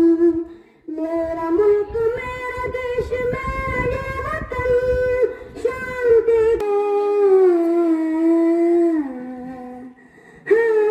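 A boy singing into a handheld microphone, holding long notes that slide from pitch to pitch, with a short break about a second in and another near the end. A low rumble sits under the first six seconds.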